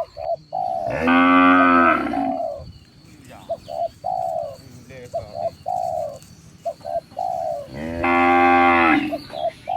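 Cattle mooing, two long calls about a second in and again near the end, while doves keep up short repeated cooing notes throughout.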